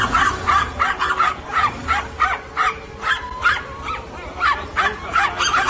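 Small dog barking in a rapid run of short, high yaps, about three or four a second, over a steady low hum.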